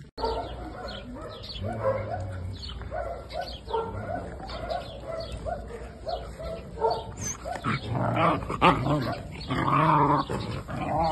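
Puppies yipping and barking in play while they wrestle: many short, high calls in quick succession, growing louder and fuller about eight seconds in.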